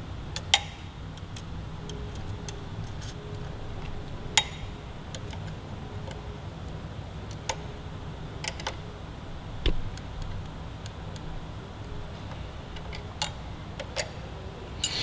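Hand tools working on a motorcycle rearset while the shift-rod jam nut is snugged up: scattered sharp clicks and taps, about eight spread unevenly, the loudest about half a second and about four seconds in, over a steady low hum.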